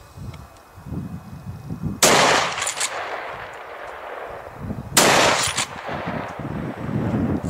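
Two rifle shots fired at a running wild boar, about three seconds apart, each followed by a rolling echo that dies away over a second or so.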